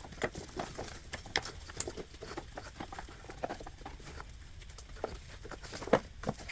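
Serpentine belt being threaded by hand around the engine's pulleys: irregular light taps and clicks of the rubber belt and hands against pulleys and engine parts, with one sharper knock near the end.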